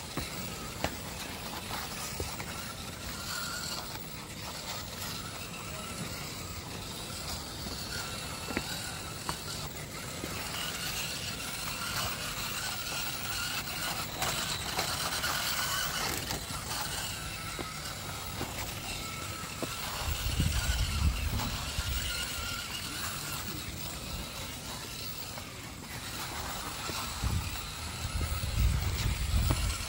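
RC rock crawler's Hobbywing Fusion Pro brushless motor and geared axle whining, the pitch wavering with the throttle as it climbs stone steps, with light clicks and knocks of tyres and chassis on the stone. Bursts of low rumble come about two-thirds of the way through and again near the end.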